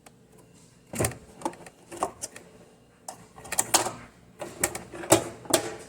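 A run of irregular sharp knocks and clicks, about a dozen, some in quick pairs, starting about a second in, like hard objects being handled and set down.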